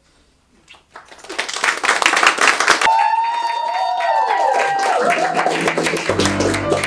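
Wedding guests breaking into applause and cheering with whoops, starting about a second in. Near the end, music with steady keyboard notes begins under the clapping.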